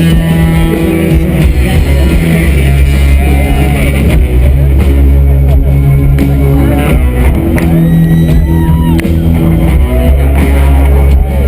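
Loud rock music with guitar, drums and a heavy, steady bass, typical of a band playing live.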